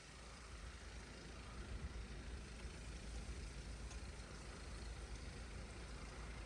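Strong winter wind gusting against the microphone: an unsteady low rumble under a steady hiss, picking up a little about a second in.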